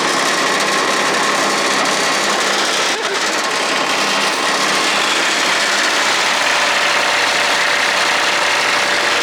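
Kubota D1105 three-cylinder diesel of a ride-on vacuum sweeper running steadily, with the vacuum fan rushing air. The engine is held fast and can't be slowed down because part of the machine is broken.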